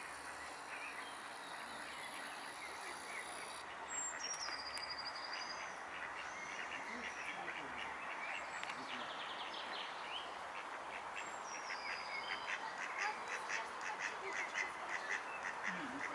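Mallard ducks quacking in quick series, growing louder and busier in the second half, over a steady background hiss. A songbird's high whistled note sounds about four seconds in.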